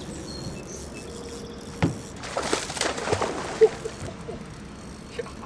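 A hooked bass splashing and thrashing at the water's surface for about a second, with a sharp click just before it and a short knock just after.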